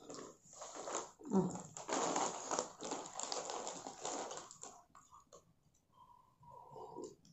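Potato chips being eaten, with crunchy chewing and a plastic chip packet crinkling in a dense run of crackles for a few seconds, then quieter near the end.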